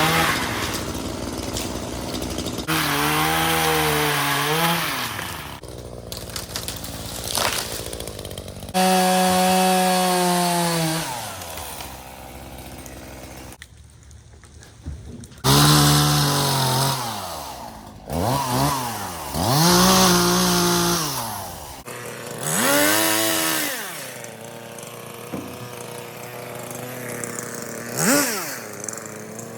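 Gas chainsaw revving up and cutting through limbs in a series of short bursts, its engine pitch climbing and dropping with each cut, about six times.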